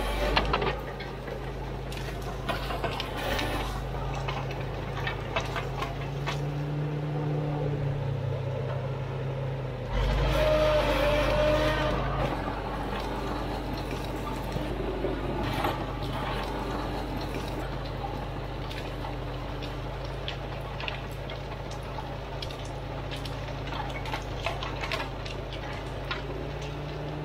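Caterpillar D4 7U crawler bulldozer's four-cylinder diesel engine running steadily under load as it pushes through gorse, with brush cracking and snapping. It gets louder and rougher for a couple of seconds about ten seconds in.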